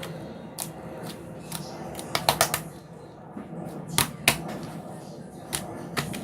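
Irregular sharp clicks or taps: a quick cluster of several about two seconds in, then single ones at intervals, over a low background murmur.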